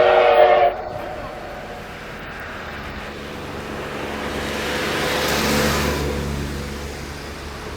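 The steam whistle of D51 498, a 2-8-2 steam locomotive, cutting off under a second in, followed by the locomotive's rumble and steam hiss swelling to a peak around five to six seconds and fading as it passes.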